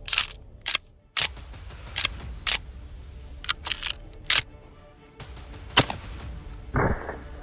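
Background music with a series of sharp, short clicks and hits spaced irregularly throughout.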